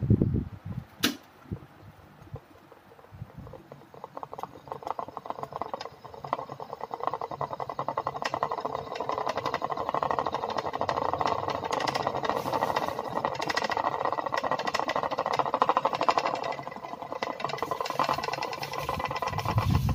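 A homemade plastic propeller toy spinning in the airflow of an electric stand fan, making a fast, steady rattling whir that builds up about five seconds in. A sharp click comes about a second in.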